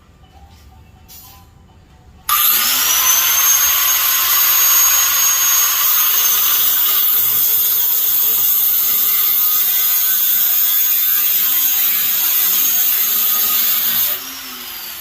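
Angle grinder with a cut-off wheel starting about two seconds in, its whine rising to a steady high pitch, then cutting through stainless steel leg stock, very loud, until about fourteen seconds in, when the load comes off and the wheel winds down with a falling whine.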